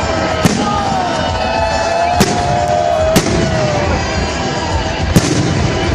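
Fireworks display: four sharp bangs of shells bursting, a second or two apart, over a continuous din of further bursts and crackle.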